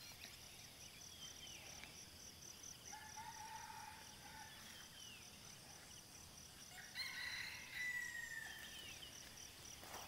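Distant roosters crowing, once about three seconds in and again, louder, about seven seconds in, over a faint, steady, pulsing insect chorus and a few short bird whistles.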